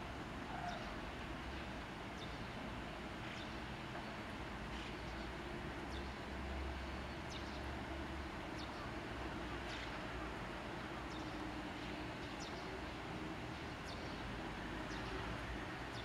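Outdoor background ambience: a steady low rumble with faint, short bird chirps scattered through it.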